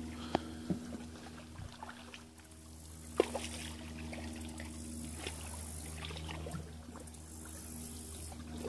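Shallow stream water trickling softly, over a faint steady low hum. There is a sharp knock about three seconds in and a few small clicks.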